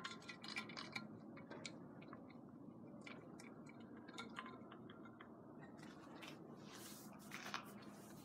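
Near silence: faint room tone with scattered small clicks and ticks, a few slightly stronger near the end.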